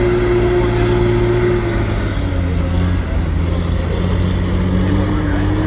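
Forestry skidder's diesel engine running under load while hauling logs up a slope. Its note drops about two seconds in and rises again near the end.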